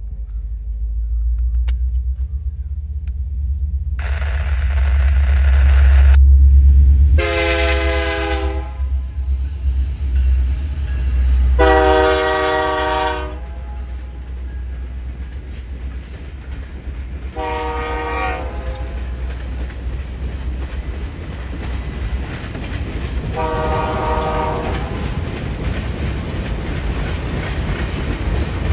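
An Ontario Northland freight train approaching and passing: the diesel locomotives' deep engine rumble builds up, and the lead unit sounds its multi-note horn in four blasts. After the locomotives go by, the steady rolling rumble and clatter of the freight cars carries on.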